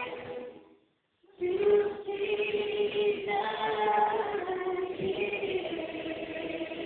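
Mixed gospel choir singing sustained chords. About a second in, the sound drops out completely for about half a second before the singing resumes.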